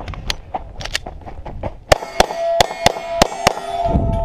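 A few clicks as the pistol is handled, then a quick string of about six pistol shots, roughly three a second, each answered by the clang of a steel target being hit. A steel plate keeps ringing near the end.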